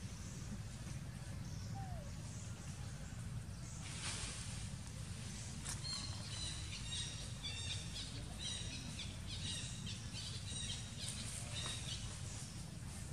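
Outdoor ambience: a steady low rumble with a hiss that picks up partway through, and a run of short, high chirps in the second half.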